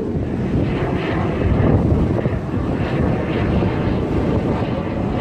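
Jet aircraft in an air display, heard as a steady rumble, with wind on the microphone.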